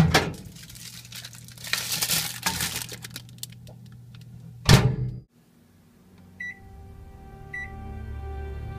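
A thump, then crinkling plastic packaging, then a heavy thunk a little under five seconds in, followed by two short microwave-oven keypad beeps as the time is keyed in. Low, steady music fades in over the last few seconds.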